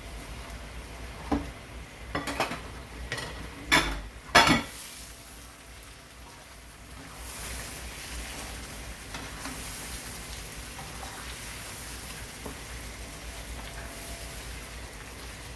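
Mullet pieces cooking in oil and spice masala in a karahi: several knocks against the pan in the first five seconds, the loudest near four and a half seconds in, then a steady sizzle.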